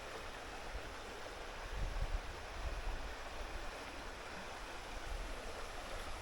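A creek's water flowing steadily, an even rushing sound, with low rumbling thumps on the microphone around two seconds in.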